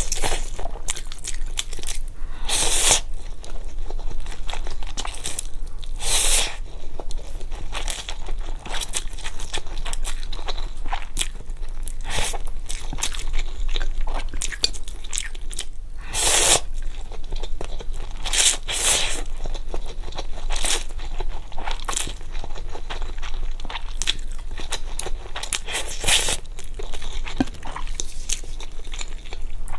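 Close-miked eating: a person biting, crunching and chewing fried skewer food and spicy instant noodles. Short wet crackles run throughout, with a few louder crunchy bursts.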